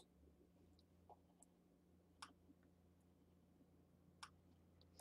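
Near silence: faint room tone with a low steady hum, and a few faint computer mouse clicks spaced irregularly.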